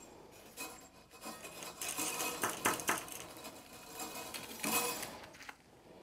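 Steel armour wires of a steel-wire-armoured cable clinking and scraping as they are worked back and forth to break them off. There are bursts of metallic rattling about two to three seconds in and again near the end.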